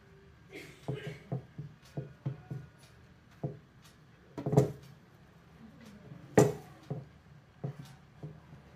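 Gloved hands tossing and rubbing steamed vermicelli on a large ceramic platter: a run of soft taps and knocks against the plate, with two louder knocks about halfway and two-thirds through.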